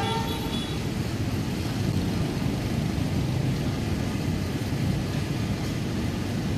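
Steady low rumble of vehicle engines, with a short horn toot right at the start.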